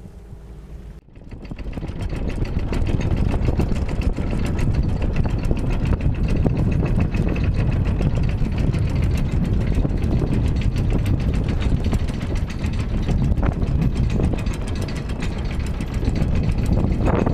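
A sailboat's auxiliary engine running steadily under way with a fast, even beat. It comes in about a second in.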